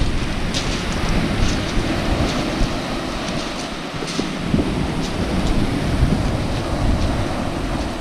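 Waves breaking and washing up a shingle beach, with wind buffeting the microphone in a steady low rumble.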